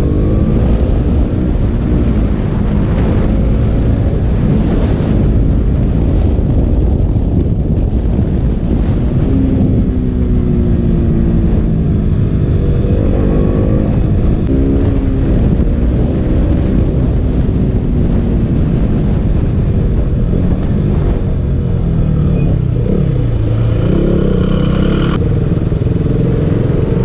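KTM RC 200's single-cylinder engine running under way, its pitch rising and falling several times as the throttle and gears change, over a steady rushing noise.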